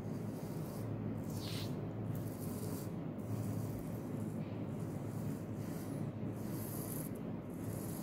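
A drawing compass scraping steadily on a sheet of paper as its drawing point is swung round to trace a circle.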